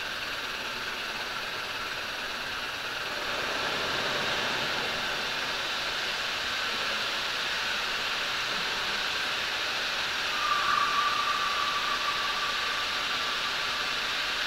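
Experimental electronic music from modular synthesizers: a grainy noise texture that grows a little louder about three seconds in. A steady high tone joins about ten seconds in and fades a couple of seconds later.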